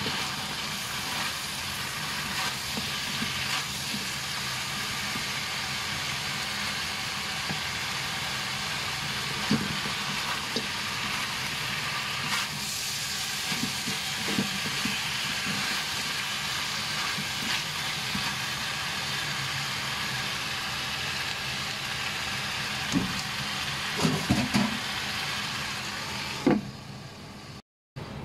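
Pork, king oyster mushroom and bitter gourd sizzling in a hot carbon-steel wok as they are stir-fried, with a steady low hum underneath. A wooden spatula scrapes and knocks against the wok every few seconds. Near the end there is a knock, and the sizzle turns quieter and muffled once a wooden lid covers the wok.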